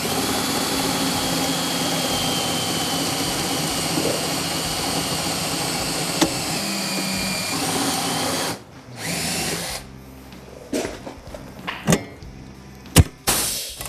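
Power drill boring up through a snowmobile foot board and its metal support bracket, running steadily with a high whine that dips slightly in pitch, for about eight and a half seconds. It stops, runs again briefly near nine seconds, then a few light metallic clicks and knocks follow.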